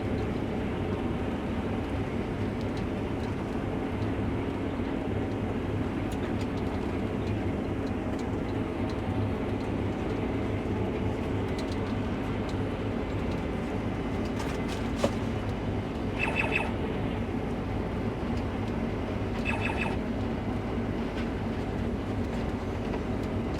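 Case IH Axial-Flow combine running under load while harvesting wheat, a steady engine and threshing drone heard from inside the cab. A single sharp click about 15 s in and two short high chirps a few seconds later.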